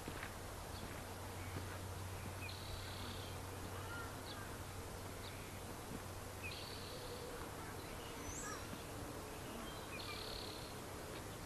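Quiet outdoor ambience with a steady hiss and low rumble, with birds chirping now and then and three short high calls about four seconds apart.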